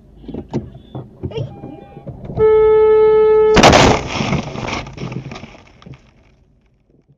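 A series of knocks, then a car horn sounds steadily for about a second before a very loud crash as a falling concrete slab smashes into the car's windshield; the laminated glass crackles as it shatters, fading over about two seconds.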